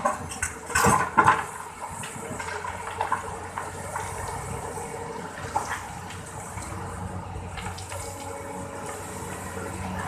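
Excavator at work backfilling: a rushing, pouring noise of earth being dumped in the first second or so, then the machine's engine running steadily under a softer spill of material.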